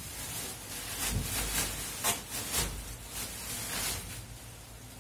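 Plastic bubble wrap crinkling and rustling in irregular bursts as it is pulled and peeled off by hand.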